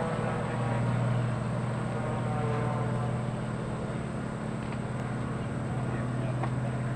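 Pitts Special aerobatic biplane's piston engine and propeller droning steadily as it flies aerobatics overhead.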